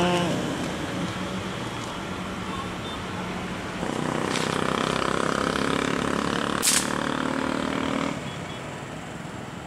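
A motor vehicle engine running nearby, louder for about four seconds in the middle, with one sharp click partway through.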